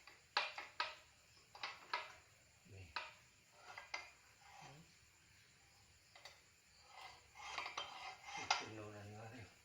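Metal parts and tools clinking and knocking together, a dozen or so separate clicks and taps, while brake components are handled during reassembly. A short low hum comes near the end.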